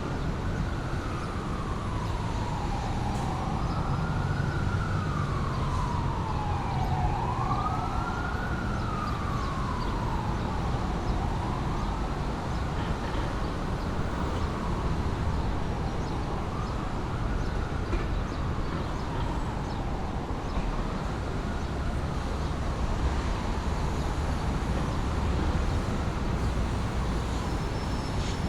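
City street traffic ambience: a steady low traffic rumble with an emergency-vehicle siren wailing, rising and falling about every four seconds. The siren fades away about three-quarters of the way through.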